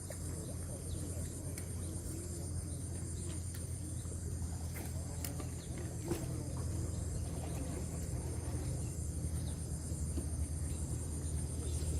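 Outdoor ambience: steady high-pitched insect chirring over a continuous low rumble, with a few faint ticks.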